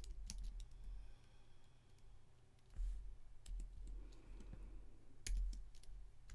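Computer keyboard keys being typed slowly, a few irregular key clicks with pauses between them, over a steady low hum.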